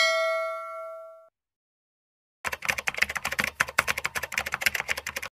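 A bell-like notification ding, the sound effect of a subscribe-button animation, rings and fades away over about a second. After a short pause comes a rapid run of typewriter-style key clicks, a typing sound effect for text appearing on screen, lasting about three seconds and stopping suddenly.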